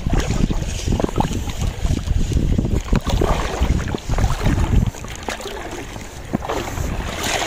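Gusty wind buffeting the microphone over lapping shallow sea water, the rumble easing off about five seconds in.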